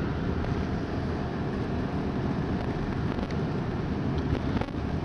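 Steady road and engine noise from a moving car, heard inside the cabin.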